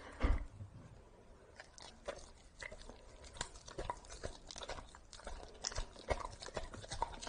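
Golden retriever chewing and biting pieces of kabocha squash, with many small irregular mouth and teeth clicks. A dull thump just after the start.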